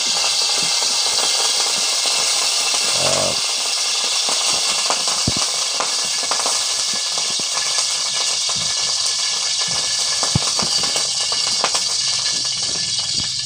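Cooking oil heating in a wok: a steady sizzling hiss with many small scattered crackles.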